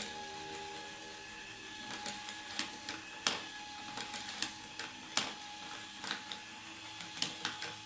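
Small battery-powered motor and gears of a Marbelocity Archimedes Screw marble-run kit running with a steady whine, as the helix screw lifts marbles. From about two seconds in, irregular sharp clicks of marbles dropping and knocking into the plastic funnel and wooden track.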